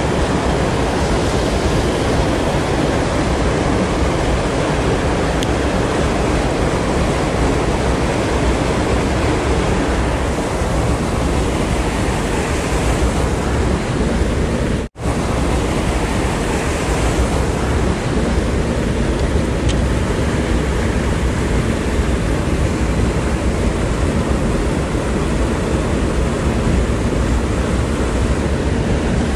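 Rushing river current and rapids, a loud steady wash of water with no let-up, cutting out for a moment about halfway through.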